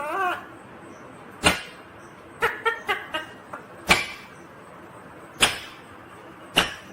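Indian ringneck parrot calling: a short wavering call at the start, then sharp, very short squawks about every second and a half, with a quick run of short chirps in the middle.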